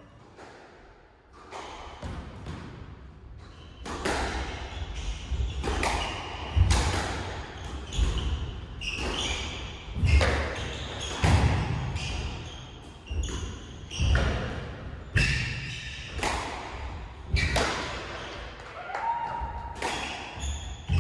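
Squash rally: the ball cracking off rackets and the front and side walls about once a second, each hit echoing in the enclosed court, starting a couple of seconds in. Short squeaks from shoes on the wooden floor come between the hits.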